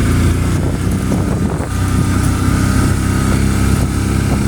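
A small vehicle engine running steadily at low revs, with no change in pitch.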